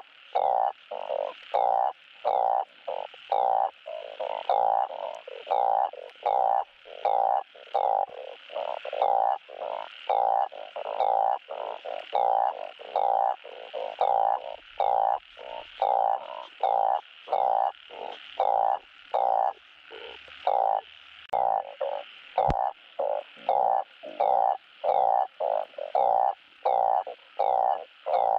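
Truncate-snouted burrowing frogs (Glyphoglossus molossus) giving their mating call: short croaks repeated about twice a second without a break.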